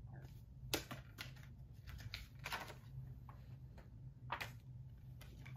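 Handling noise from a Blu-ray SteelBook case: a handful of light clicks and brief rustles, scattered irregularly, over a faint steady low hum.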